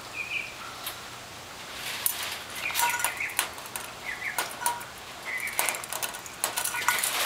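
Metal chain clinking and rattling in quick irregular clicks as monkeys handle and haul up a hanging feeding cup, with short high chirps scattered through.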